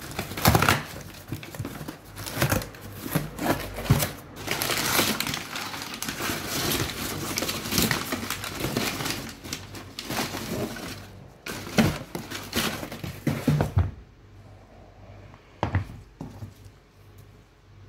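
Cardboard box being torn open and crumpled brown packing paper rustling and crinkling as it is pulled out, with many sharp crackles and snaps. After about fourteen seconds the handling goes much quieter, with a few light knocks as the shoes are set down.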